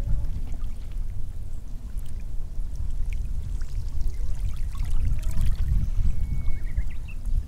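Beach ambience: water washing at the shoreline, under a heavy low rumble of wind on the microphone.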